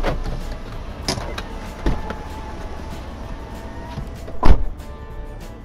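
A Daihatsu Xenia's car door as the driver gets out: a smaller knock about two seconds in, then the door slammed shut with a loud thump about four and a half seconds in.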